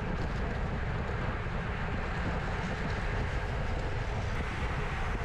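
Steady wind rush over the microphone with tyre and road hum from a road bike riding in a bunch at about 42 km/h.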